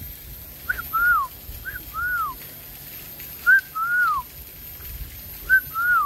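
A person whistling a two-note call four times, each a short high note followed by a longer note that arches up and then slides down.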